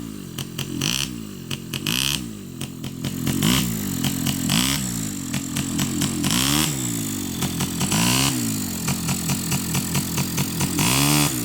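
ATV engine revving up and down over and over as the throttle is opened and let off in short goes, each rev rising and then falling in pitch.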